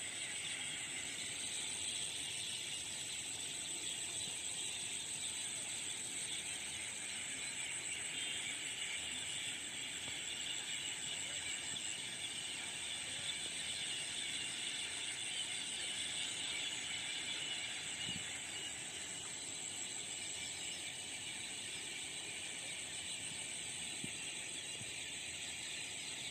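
A dense chorus of small creatures chirping and trilling outdoors, the high trills held without a break and the level steady throughout.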